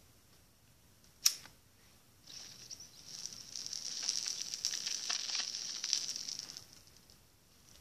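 A lighter strikes with one sharp click a little over a second in. Then, for about four seconds, a crackling hiss as the flame lights the smoke and it is drawn on, swelling in the middle and fading away.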